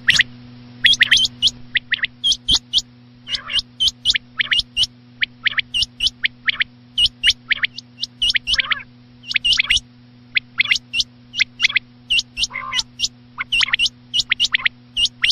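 Rain quail calls: sharp, clipped notes in quick runs of three to five, repeated again and again, as in a lure recording for quail hunting. A steady low hum runs underneath.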